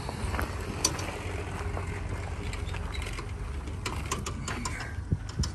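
Footsteps crunching on a gravel lot at an irregular pace, over a low steady rumble.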